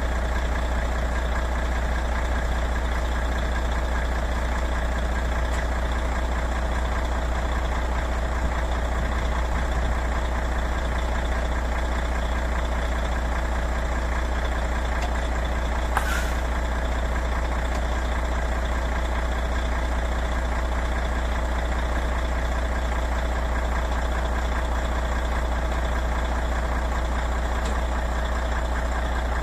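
Heavy truck's diesel engine idling steadily, with a short sharp click about halfway through.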